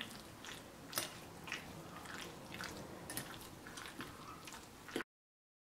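Fork stirring raw chicken pieces through a yogurt and spice marinade in a glass bowl: faint wet squishing with light clicks, about two strokes a second. The sound cuts off to complete silence about five seconds in.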